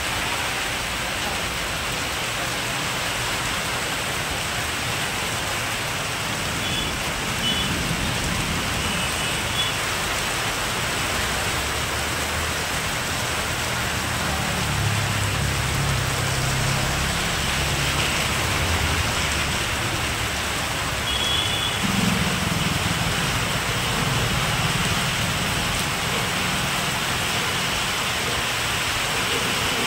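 Steady rain falling on a wet paved street. A low rumble rises and fades in the middle.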